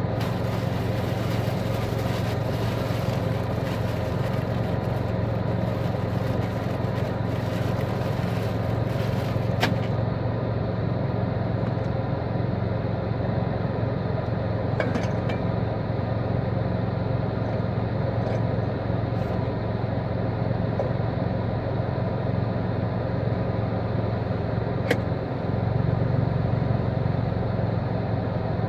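Steady low mechanical hum, like a motor or engine running, with a few light clicks from handling food and utensils.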